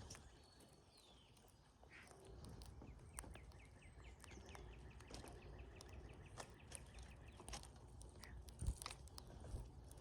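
Faint cowbird calls: a short falling whistle about half a second in, then a rapid chattering run of notes from about three to six seconds, with scattered sharp clicks throughout.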